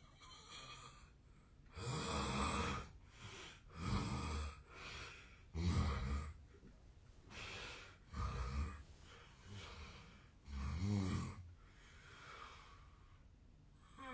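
A man snoring in his sleep: rough snores come every one to two seconds, louder ones alternating with softer ones. The sleeper suspects the snoring is a sign of a long-standing sleep disorder. A brief falling squeak comes at the very end.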